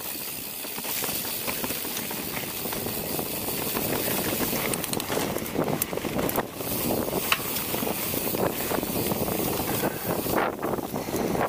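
Giant Trance 29 full-suspension mountain bike riding fast down a dirt singletrack: steady tyre and rolling noise with constant quick rattles and knocks of chain and frame over the bumps, and wind rushing over the microphone.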